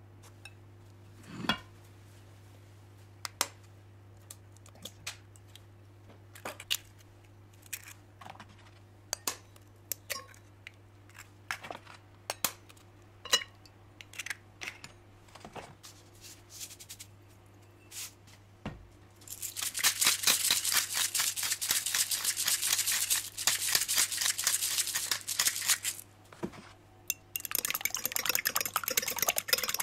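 Kitchen knife on a wooden cutting board: scattered single knocks and clinks of knife and food on the board. About two-thirds in, these give way to a fast, continuous run of crisp cutting strokes, which pauses briefly and then resumes near the end.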